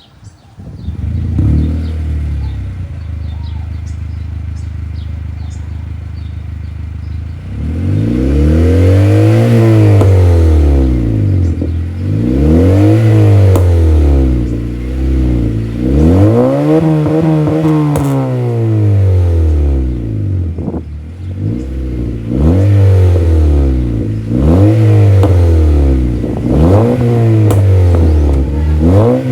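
2011 Honda CR-Z's 1.5-litre four-cylinder running through an aftermarket Tenrai dual-muffler exhaust with the secondary catalytic converter removed and an HKS intake. It idles steadily for about seven seconds, then is revved up and let fall back about eight times, each rev rising and falling in pitch.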